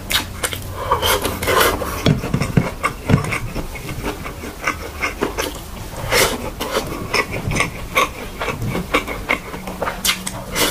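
Close-miked ASMR eating sounds: wet, irregular chewing and mouth smacks as a person eats beetroot slices and fried rice by hand.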